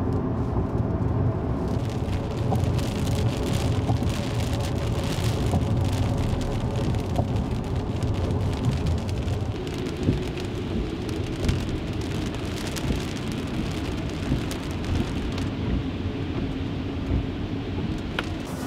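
Heavy rain hitting a car's windshield and body, heard from inside the moving car over the low rumble of the car on the road. The rain sets in about two seconds in and eases near the end.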